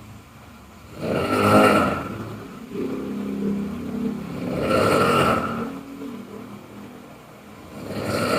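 A person snoring loudly, a harsh rattling snore on each breath, three in all, about three and a half seconds apart, with a lower pitched drone between two of them.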